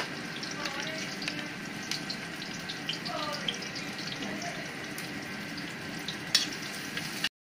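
Sliced garlic and shallots sizzling in a wok, with a metal spoon clicking and scraping against the pan now and then; the sound cuts off suddenly near the end.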